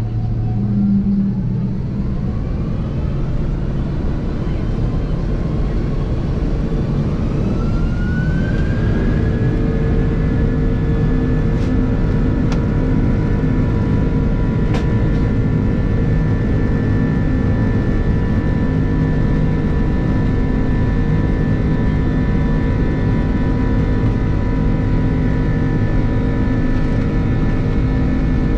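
Airbus A330's twin jet engines spooling up to takeoff thrust, heard inside the cabin: a whine rises in pitch over the first nine seconds or so, then holds steady over a loud rumble.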